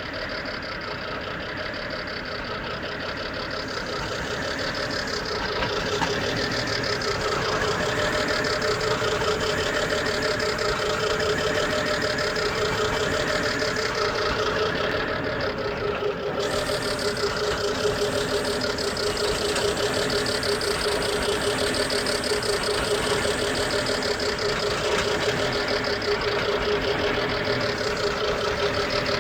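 BMW 3.0-litre straight-six engine running cold with a strange knocking noise over a steady whine, getting louder over the first several seconds and then holding steady. The noise is the sign of a cold-engine fault.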